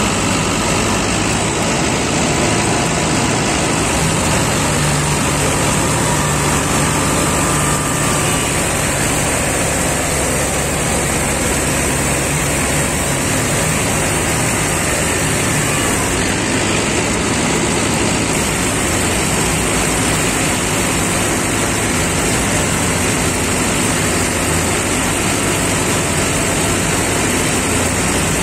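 Combine harvester working in the crop: its engine and threshing machinery run with a loud, steady mechanical din that holds unchanged throughout.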